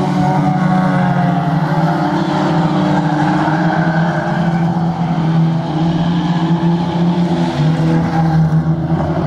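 Several banger racing cars (old hatchbacks) racing round a shale oval, their engines running together in one steady drone that rises and falls slightly in pitch as they pass and pull away.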